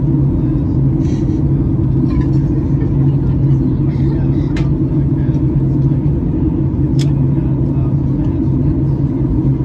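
Steady low drone inside the cabin of a Boeing 737 MAX 8 in flight: engine and airflow noise from its CFM LEAP-1B engines, heard at a window seat over the wing. Two faint clicks come in the second half.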